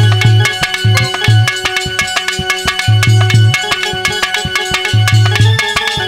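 Instrumental interlude of Indian folk devotional music: a hand drum plays a fast, steady rhythm with deep bass strokes in repeating groups, over held melody notes.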